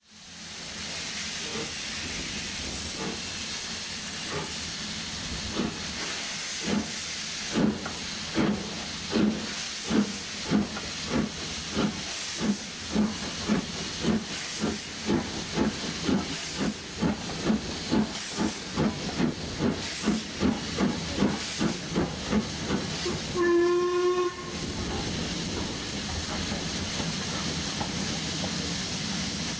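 Steam locomotive pulling away with a train: a steady hiss of steam, then exhaust chuffs starting about five seconds in and slowly quickening as it gathers speed. A single whistle blast of about a second comes near the end, followed by a steady rushing noise.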